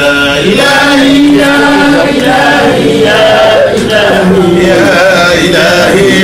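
Men's voices chanting a devotional invocation together, with long held notes that waver in pitch, led by one voice on a microphone.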